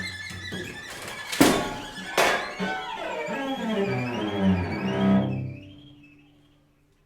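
String quartet playing the closing bars: two sharp percussive accents about a second and a half and two seconds in, then a high violin line with wide vibrato over sustained low notes. The final chord fades out near the end.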